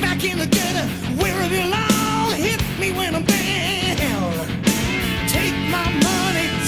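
Hard rock recording: electric guitar playing bent, wavering lead lines over bass and a steady drum beat.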